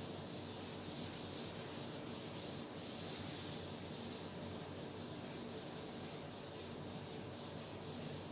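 A green chalkboard being wiped clean in repeated rubbing strokes. The sound is faint.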